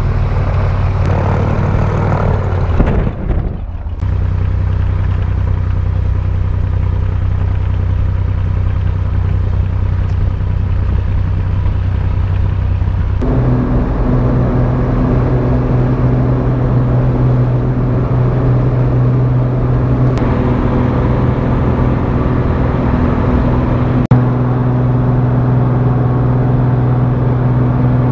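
Single-engine propeller plane's engine and propeller droning steadily, heard from inside the cabin. About thirteen seconds in the drone steps up in pitch and gets louder as power is applied for the takeoff roll, then holds steady through the climb.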